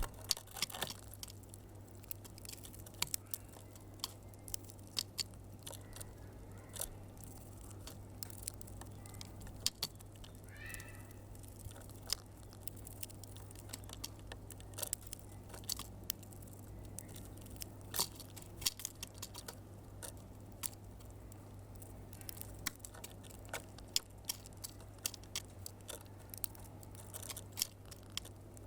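Small birds pecking and feeding: irregular sharp pecking clicks and crunches throughout, with one short chirp about ten seconds in, over a steady low hum.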